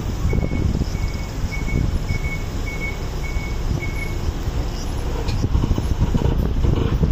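Kantetsu route bus pulling in to a stop, its engine rumbling low with wind on the microphone. A short high electronic beep repeats about twice a second for the first four seconds, and a short sharp sound comes about five seconds in.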